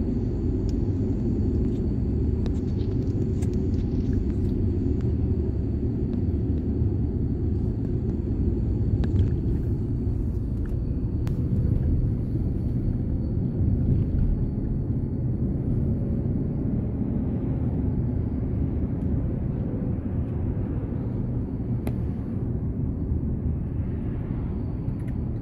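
Steady low rumble of a car moving along a road, heard from inside the cabin, with a faint high steady tone throughout.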